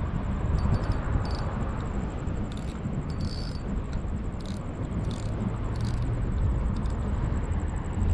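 An insect, cricket-like, trilling steadily in a fast, even, high-pitched pulse over a low outdoor rumble, with a few faint clicks scattered through.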